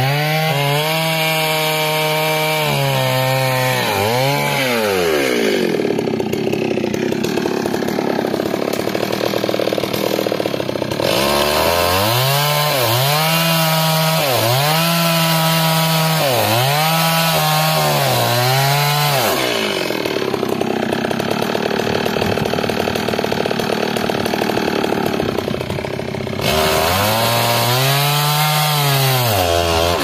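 Stihl chainsaw running at high revs, the throttle swelling and dropping again and again, with longer steady stretches as the chain cuts through a felled log.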